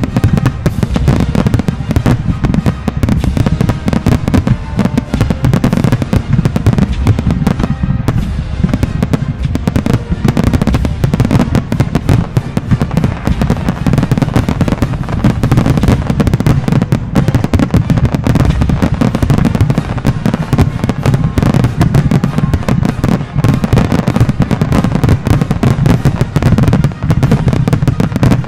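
A dense, continuous barrage of aerial firework shells bursting, with the bangs overlapping so closely that they run together into a steady rumble.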